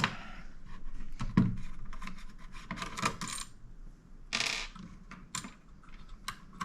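Light clicks and clatter of small metal and plastic parts being handled while an HP Elite Mini 800 G9 mini desktop is taken apart, with a short scraping sound about four and a half seconds in.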